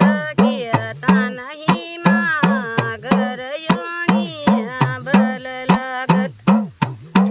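Hudka, the hand-played Kumaoni hourglass drum, beaten in a quick steady rhythm of about three strokes a second. Each stroke bends up and then down in pitch as the lacing is squeezed.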